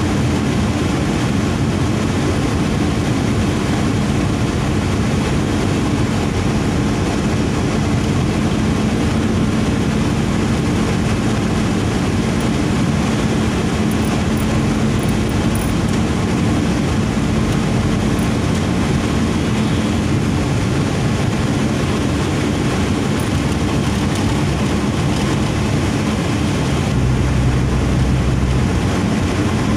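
Steady road and engine noise inside a moving car's cabin: tyre rumble and engine drone at a constant level. A deeper drone comes in near the end.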